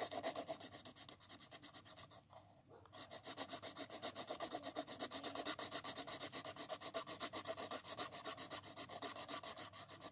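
Pencil scribbling on paper, rapid back-and-forth strokes shading in a square, with a short pause about two seconds in.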